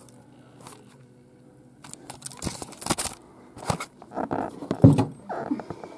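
Handling noise from things being moved about close by: a quiet start, then clattering knocks from about two seconds in, shuffling, and a heavy thump about five seconds in.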